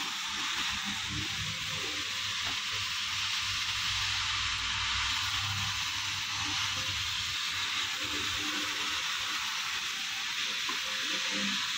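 Floor-cleaning machine running steadily on a wet concrete floor, an even hiss over a low hum.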